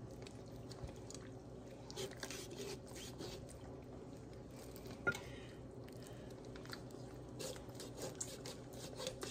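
Large kitchen knife cutting down through a whole raw chicken on a plastic cutting board, with scattered small cracks and clicks as the blade works through bone and cartilage, and a sharper crack about five seconds in.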